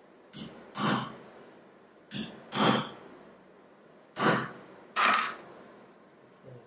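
Hammer blows on a dapping punch seated in a metal dapping block, doming a small silver flower cut-out into a cup: six sharp metallic strikes with a short ring, coming in three pairs of a lighter tap followed by a harder blow. A faint soft knock near the end.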